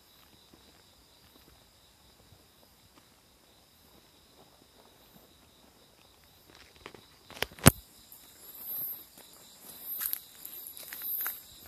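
Crickets and other night insects trilling steadily. About seven and a half seconds in there is a sharp knock, followed by footsteps on the ground about once a second.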